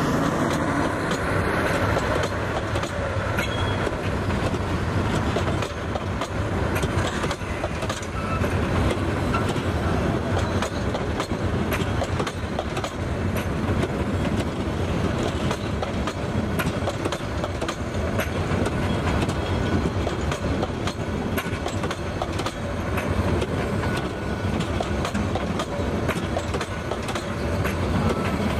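Bangladesh Railway intercity passenger coaches (a PT INKA rake) rolling past on the track. Their wheels make a steady rumble on the rails, with repeated clacks over the rail joints.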